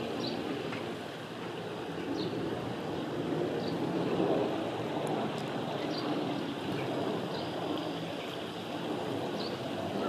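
Steady rushing noise of river water flowing, with faint short high bird chirps every second or two.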